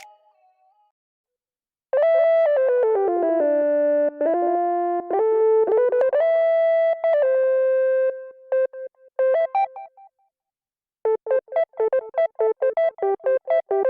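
Omnisphere software synthesizer patch played as a melody: after about two seconds of silence, a bright held lead line whose notes slide into one another, then after a short gap a quick run of short repeated notes.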